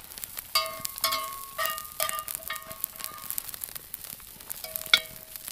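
Metal spatula clinking and scraping against cast iron skillets, each strike ringing briefly, about twice a second for the first few seconds, with a louder ringing clang near the end. A faint sizzle of frying bacon and eggs sits underneath.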